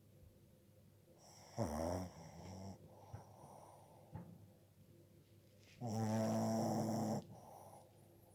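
A sleeping pet snoring: two snores, the first falling in pitch and trailing off, the second louder and steady for about a second and a half.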